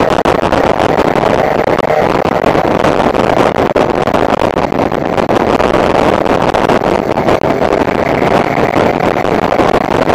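Loud, steady rush of wind buffeting the microphone on a moving motorcycle, with the engine's drone underneath as it rides at speed.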